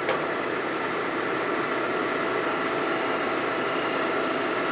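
Vertical milling machine running steadily while taking a light skim cut across a Harley-Davidson panhead engine case. A faint high whine comes in about halfway through.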